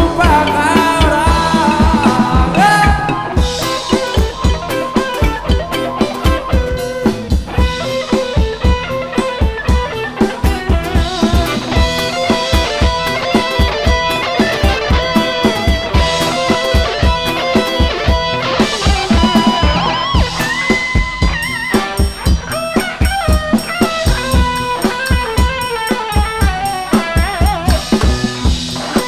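Instrumental band music with a steady drum-kit beat and guitar, no singing.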